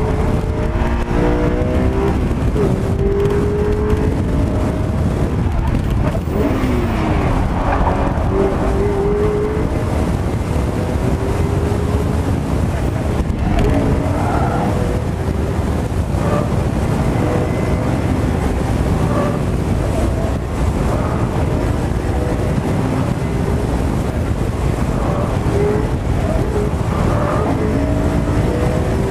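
Car engine revving hard and dropping back again and again as it is driven at full effort through an autocross cone course, with the pitch rising and falling through the run, over steady road and wind noise heard from inside the open-top car.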